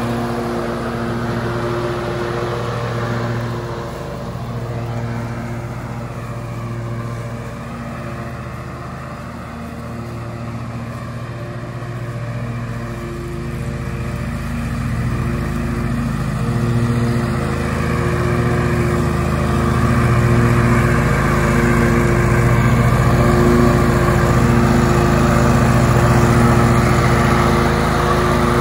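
John Deere L120 riding lawn mower's V-twin engine running at full throttle with the cutting blades engaged, mowing grass. The engine sound fades as the mower moves away and grows louder as it comes back.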